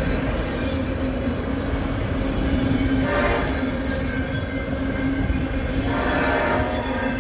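Train moving slowly past: a low rumble with a steady droning tone underneath. Two short horn blasts sound, about three and six seconds in.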